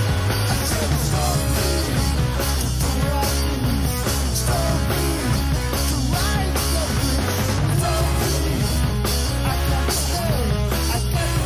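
Electric guitar on a Stratocaster playing a rock lead line with frequent string bends, over a backing track with bass and drums.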